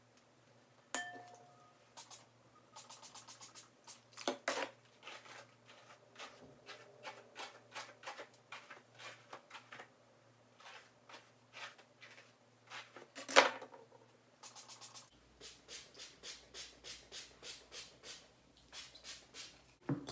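A hand-pump spray bottle spritzing water onto hair, in repeated short squirts of about two to three a second with a quicker run near the start. A single sharp knock about two-thirds of the way through is the loudest sound.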